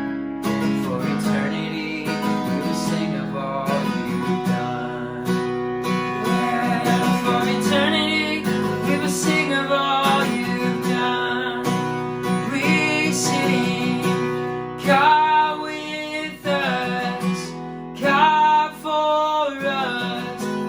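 Acoustic guitar strummed in a steady rhythm, with a voice singing over it from about the middle on.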